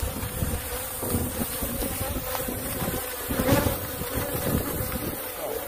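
A dense, agitated swarm of Africanized (killer) honey bees buzzing steadily around the microphone, stirred up from a hive in an old car's gas tank. A low rumble of wind on the microphone lies under the buzz.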